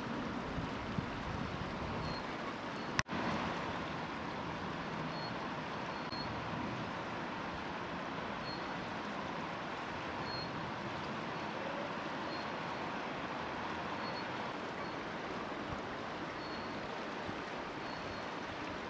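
Fast-flowing river rushing steadily, an even wash of water noise, with a sharp click and a momentary dropout about three seconds in.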